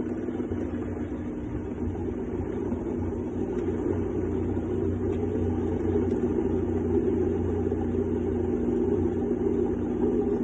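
Countertop blender motor running steadily, churning watermelon flesh and whole peeled limes into juice.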